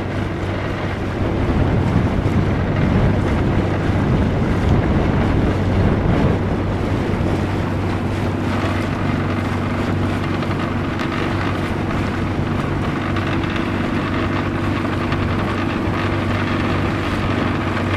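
Motorboat engine running steadily at a constant hum, with wind rumbling on the microphone, heavier in the first several seconds.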